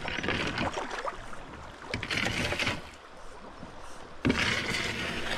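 Oars pulling through the river current as a raft is rowed, with water splashing and rushing along the boat; two louder splashing strokes come about two seconds in and just after four seconds.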